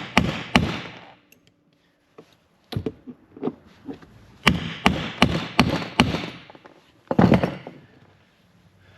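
Hammer striking a chisel to crimp a cable lug onto a battery cable on a workbench, an improvised crimp done without a crimp tool. The blows come in groups with short pauses between, each a sharp metallic strike with a brief ring, and one heavier, duller blow about seven seconds in.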